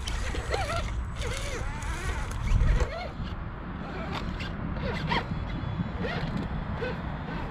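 Axial SCX10 II scale RC crawler's electric drivetrain grinding and ratcheting as it crawls over boulders, with clicks from the tyres and chassis on rock. Wind rumbles on the microphone throughout, with a loud gust or bump about two and a half seconds in.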